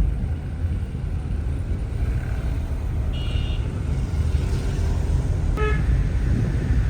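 Street traffic running steadily, with a short high beep about three seconds in and a brief horn toot near the end.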